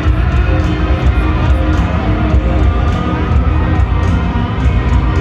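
Hard rock band playing live through a stadium PA, electric guitars over heavy bass and drums, heard from the upper tier with distortion and echo that make the sound muddy.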